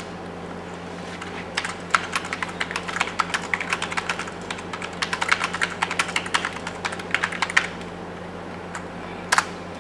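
Typing on a computer keyboard: a quick, irregular run of key clicks for about six seconds, then a pause and one louder click near the end, over a steady low hum.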